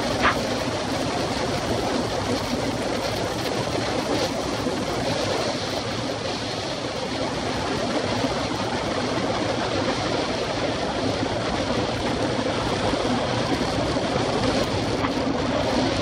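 Steady rush of wind over a bike-mounted camera's microphone, with tyre noise on tarmac, as a road bike coasts fast without pedalling. A single brief tick sounds about a quarter second in.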